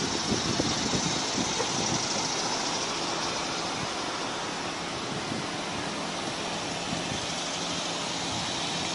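Audi A4 2.0T's turbocharged four-cylinder engine idling steadily, under a steady outdoor hiss.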